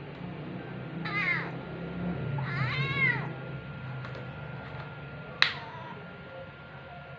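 Pinstripe tabby kitten meowing twice, about a second in and again around the three-second mark, each call arching in pitch. Near the end comes one brief, sharp high-pitched sound, the loudest moment.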